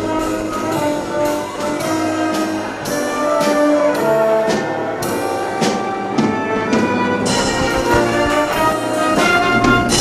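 Orchestral accompaniment for a stage musical, led by brass and playing an instrumental passage over a steady, regular beat.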